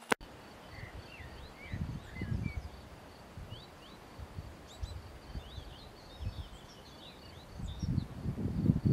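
Songbirds chirping in short rising and falling calls over wind buffeting the microphone. The wind gusts come once about two seconds in and grow stronger near the end. A brief sharp click sounds right at the start.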